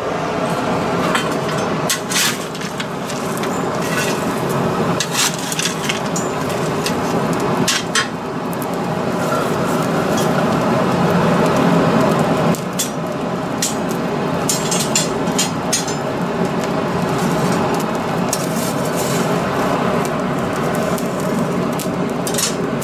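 Coal forge fire burning hard under a steady air blast, a continuous rushing noise with a faint hum. Scattered sharp crackles and clicks come from the burning coal and the iron in the fire.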